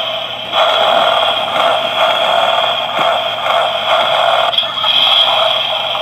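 Battery-operated Road Rippers Wheelie Monsters crocodile toy monster truck playing its electronic sound effects through a small, tinny speaker, set off by its try-me button. The sound is loud and continuous, with short breaks about half a second in and again near the end.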